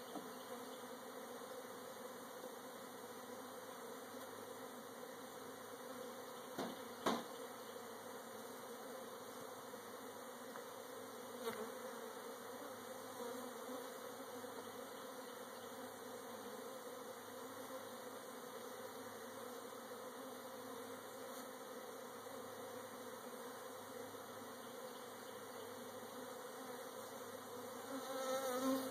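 Honey bees buzzing steadily around an open hive as a cutout colony is installed into it, with a couple of short knocks about 7 and 11 seconds in and a louder buzz near the end.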